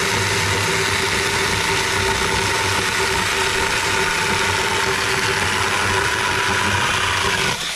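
A 6-inch cordless 21-volt mini electric chainsaw cutting through a 2x4: a steady motor whine with the chain tearing through the wood. The sound drops near the end as the cut goes through.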